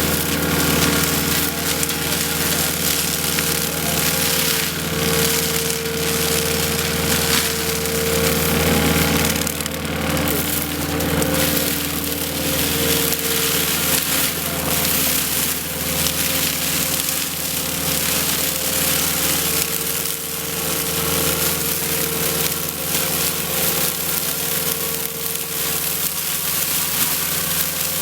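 Skid steer engine and hydraulics running steadily while a hydraulic attachment on the side-arm boom works through material. Irregular crackling and rattling sounds over the engine's drone.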